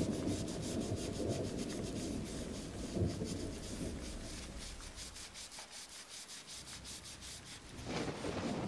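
Sandpaper rubbed by hand in rapid, even back-and-forth strokes. The sanding is lighter past the middle and heavier again near the end.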